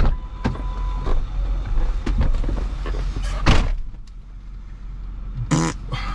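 Vehicle engine running with a steady low rumble, with scattered knocks and clunks. A short steady beep comes about a second into it, and a loud thump about three and a half seconds in.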